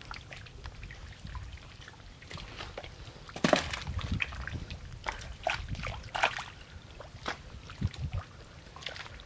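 Feet wading through shallow muddy water, with irregular splashes and sloshes; the loudest splash comes about three and a half seconds in.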